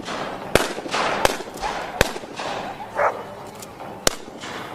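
Small model cannons on miniature warships firing in an irregular volley: about five sharp cracks, each trailed by a brief hissing rush.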